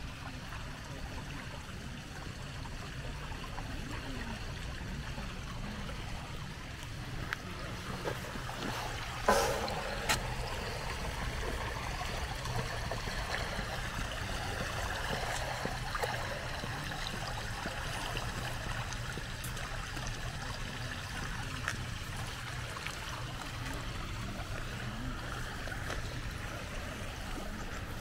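The Lorze river flowing steadily, with one knock about nine seconds in.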